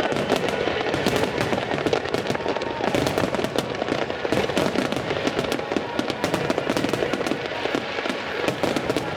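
Starmine fireworks barrage: a dense, continuous run of rapid shell bursts and crackling reports with no break.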